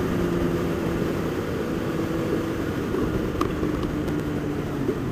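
Sport motorcycle engine running at a steady cruise, heard from the rider's seat over a steady rush of wind.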